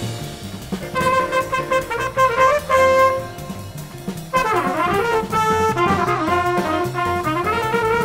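Trumpet playing a fast up-tempo jazz swing solo line of short notes and quick runs, starting about a second in, with a drum kit behind it.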